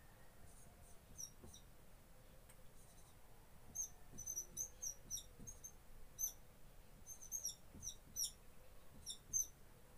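Dry-erase marker squeaking on a whiteboard as an expression is written: short, high chirps in quick clusters, a few early on the first stroke and thicker from a few seconds in.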